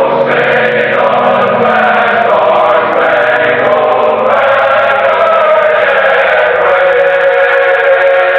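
Choir singing a slow anthem in long held chords, with no speech.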